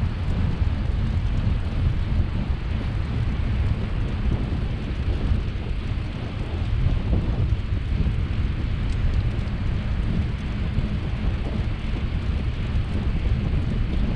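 Wind buffeting the microphone of a camera riding along on a moving bicycle: a steady, heavy low rumble with a rushing hiss over it.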